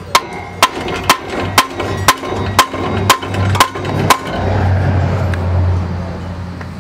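Hammer strikes on a car's rear muffler and exhaust pipe to knock it loose, nine sharp metallic blows about two a second, each with a short ring. They stop about four seconds in, and a low rumble follows.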